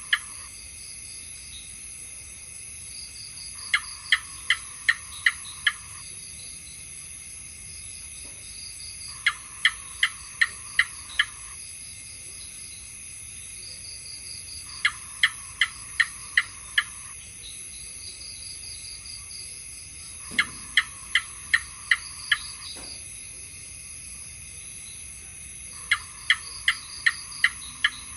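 House gecko chirping in rapid runs of six or seven sharp 'chik' notes, about three a second, a run roughly every five and a half seconds, over a steady high cricket drone.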